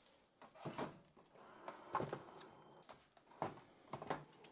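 Filament spools and plastic parts of a Bambu Lab AMS 2 Pro filament unit being handled as spools are loaded: a series of faint, separate plastic clicks and knocks.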